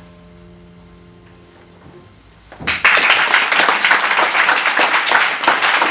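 The final chord of a grand piano dies away, and about two and a half seconds in an audience breaks into loud applause.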